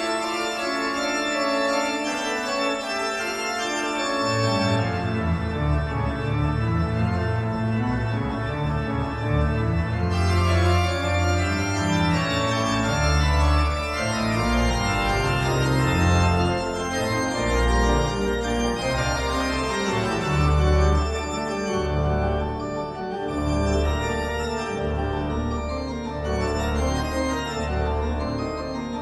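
Music with sustained chords, organ-like in tone; a deep, moving bass line comes in about four seconds in.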